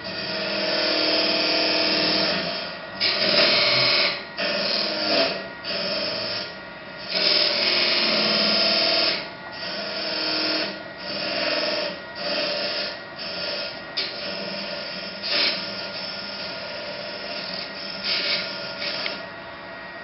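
A wood lathe spins a wooden whistle blank while a hand-held turning tool cuts into it in a series of short passes, each lasting about half a second to two seconds with brief lulls between.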